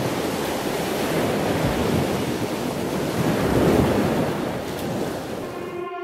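Sea surf washing in, rising and falling in slow swells, with some wind. Music comes in at the very end.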